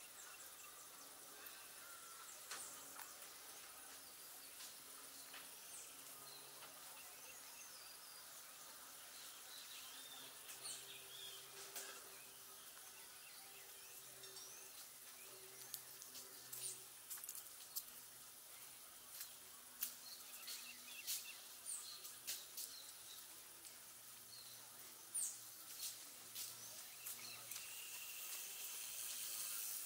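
Quiet park ambience: birds chirping and calling over a steady high insect hiss. A run of short sharp ticks comes in the second half.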